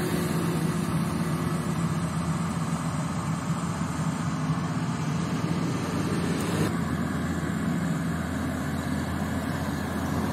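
Small rice combine harvester running steadily while harvesting, its engine and threshing machinery giving a continuous mechanical drone. The sound shifts slightly about two-thirds of the way through.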